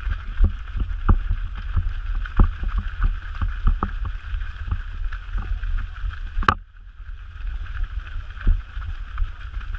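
Running footfalls on a gravel trail picked up by a body-carried action camera, knocking about three times a second with each stride, over a steady low rumble of wind on the microphone. A single sharp click about six and a half seconds in.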